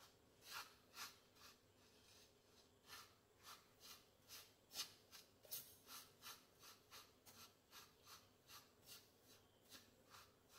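Faint scraping of a wooden spoon stirring dry roasted semolina and grated coconut around a pan, in short even strokes about two a second.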